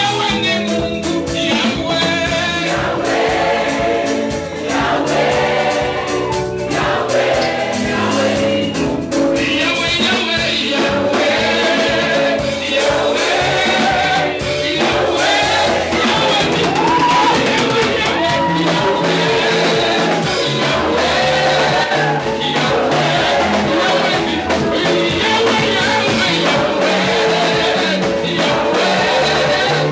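Live gospel music: a band with a choir of voices singing together.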